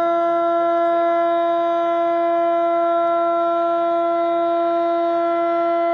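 A siren sounding one long, steady tone with strong overtones, a warning signal before the launch of the three-shaku (about 90 cm) firework shell.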